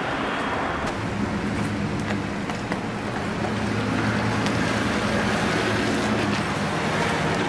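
Steady heavy rain falling on pavement. A car drives past on the wet street, its engine hum and tyre noise swelling from about halfway through.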